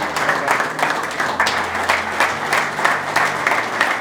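A group of people applauding together, steady dense clapping.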